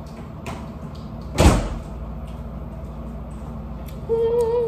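A single loud thump about a second and a half in, over a steady low hum. Near the end a girl's voice holds a short, wavering hummed note.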